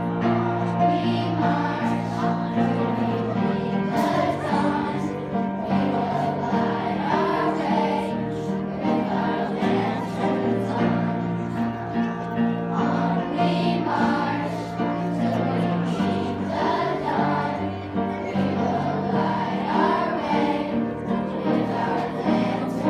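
A choir singing a song, voices held in sustained chords with slow melodic turns.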